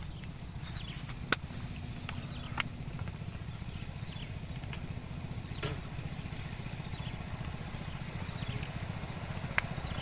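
A steady low rumble with faint repeated high chirps over it, broken by a few sharp clicks, the loudest about a second in.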